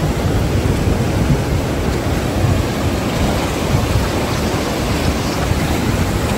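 The Kunhar River running high and fast over rapids: a steady rush of white water breaking over rocks, with a deep rumble underneath.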